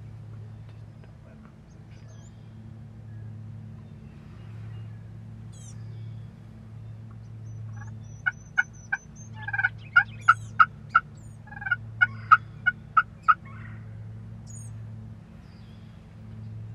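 Wild turkey calling: about fifteen short, sharp yelping notes in loose runs, starting about eight seconds in and ending about five seconds later, over a steady low hum.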